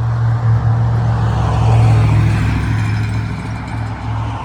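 An engine running steadily with a deep hum, swelling a little about two seconds in.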